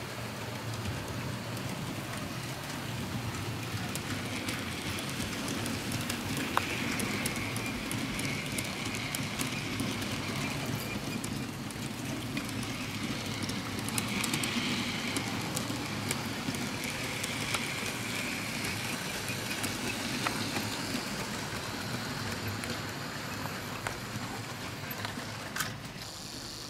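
HO-scale model steam locomotive and its freight wagons running along sectional track. There is a steady electric-motor whir with a whine that swells and fades, and the wheels click over the rail joints.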